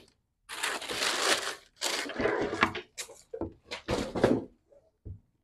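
Tissue paper and a cardboard box rustling and crinkling as packaging is cleared away, followed by a few short knocks as the leather boots are set down on a wooden tabletop.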